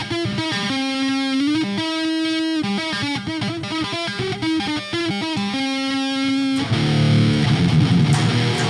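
Electric guitar, a First Act jazz-style guitar in D standard tuning, played through an amplifier: a picked single-note riff with a string bend, then heavier distorted low chords near the end.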